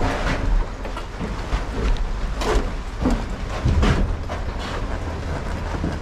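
A heavy Harley-Davidson touring motorcycle being rolled by hand out of an enclosed trailer, its wheels rumbling over the floor with irregular knocks and clatters, the loudest about two and a half and four seconds in.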